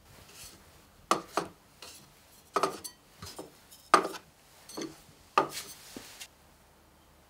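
Small pottery cups and dishes being set down one after another on a wooden board: a string of light clinks and knocks with a short ceramic ring, stopping about six seconds in.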